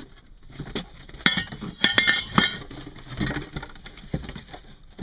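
Hard parts of a rotary-tool drill-press stand clinking and knocking against each other as they are unpacked and handled, with a quick cluster of sharp clinks about two seconds in.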